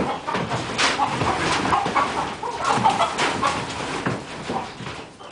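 A rooster clucking and squawking over and over in alarm as it is chased and grabbed at by hand.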